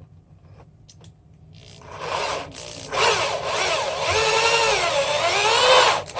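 Handheld electric drill boring a hole through thin acrylic sheet. It starts after a couple of small clicks, falters briefly, then runs loudly with its motor pitch wavering up and down as the speed is held back to go slow. It cuts off just before the end.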